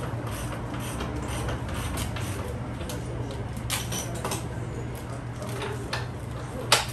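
Scattered mechanical clicks and knocks of workshop tool work over a steady low hum, with one sharp, loud click near the end.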